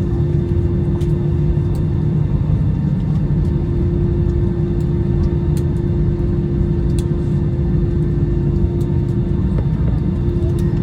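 Steady, loud engine and airflow rumble inside the cabin of an Airbus A321-211 airliner, its CFM56 turbofans running, with a steady hum over the rumble and a few faint clicks.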